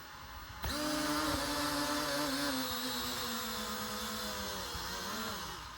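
Mini drone's motors and propellers spinning up suddenly about half a second in, a steady whine that sags slightly in pitch, dips briefly near the end and picks up again. One of its propellers is not turning.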